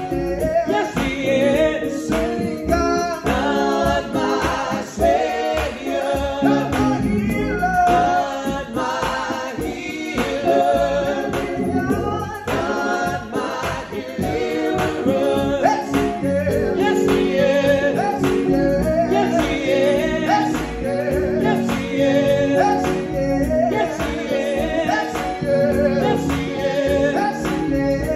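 Three men singing a gospel song in harmony, accompanied by a Hammond organ playing sustained chords.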